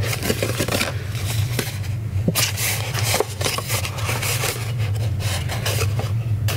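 Stiff scored paper being folded and creased by hand into a box, with many short crackles and scrapes, over a steady low hum.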